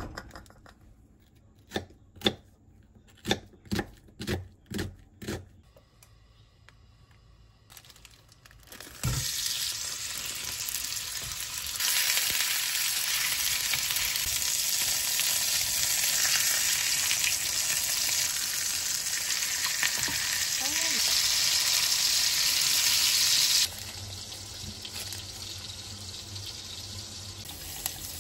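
Food sizzling and frying in a hot pan. It starts with a thump about a third of the way in, grows louder a few seconds later, then drops off sharply to a quieter sizzle near the end. Before it comes a run of about seven sharp knocks.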